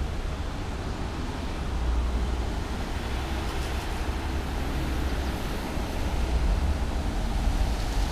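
Steady street traffic noise: an even low rumble with a hiss over it.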